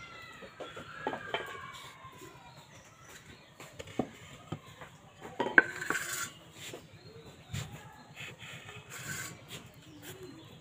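Clinks and knocks of a steel plate and a wooden rolling board being handled on a hard floor, with one loud sharp knock about halfway through. Soft rubbing of dough against the floured wooden board near the end.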